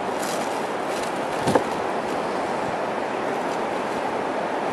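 Steady wash of Atlantic surf breaking on the beach, with a single short knock about a second and a half in.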